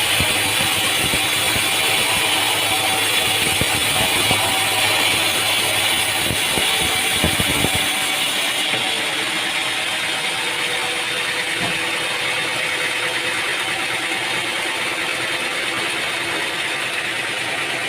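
Sawmill machinery running steadily, with rattling knocks over the first eight seconds, then a smoother, steady hum.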